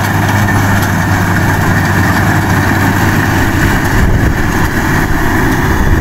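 World Ruilong rice combine harvester running steadily as it cuts and threshes rice: its engine hum and the whir of the cutting and threshing machinery.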